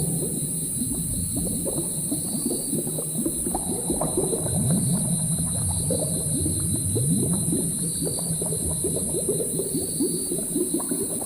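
Dense low bubbling and gurgling, like a thick liquid simmering in a pot, over a steady low hum, with a faint short high chirp recurring about every two seconds.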